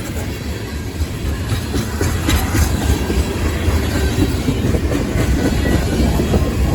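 Freight cars of a long CSX freight train rolling past, a loud steady low rumble that grows slightly louder, with a few sharp clacks about two seconds in.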